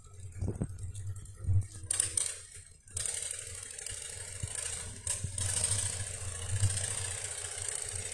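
An engine running steadily, with a few knocks in the first two seconds and a steady high hiss from about three seconds in.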